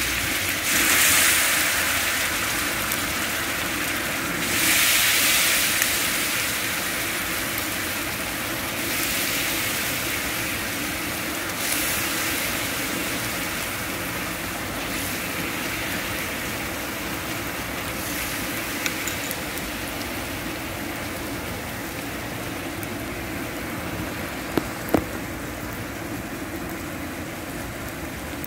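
Water sizzling and bubbling in a hot wok, just poured in. The sizzle swells several times in the first dozen seconds, then slowly dies down, with two sharp taps near the end.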